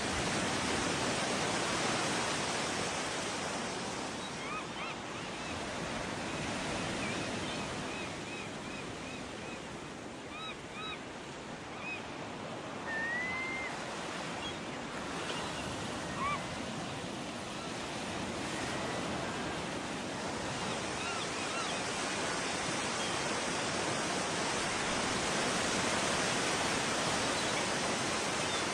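Ocean surf breaking and washing on a beach, a steady rushing wash, with a few faint short high chirps in the first two-thirds.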